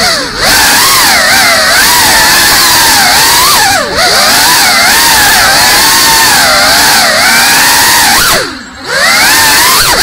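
GEPRC Cinelog35 cinewhoop's four brushless motors and ducted props whining, the pitch rising and falling constantly with the throttle. The whine dips briefly a few times as the throttle is cut, longest for about half a second near the end.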